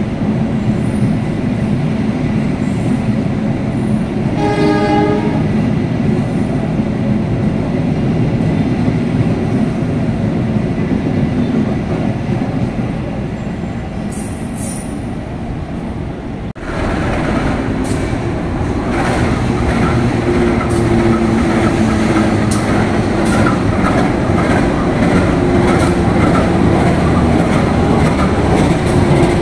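Indonesian GE U20C (CC203-class) diesel-electric locomotives running with a train: a short horn blast about four seconds in over steady engine and wheel noise. After a sudden break past the halfway point, a locomotive's engine runs louder, with steady low tones and rolling wheel clatter.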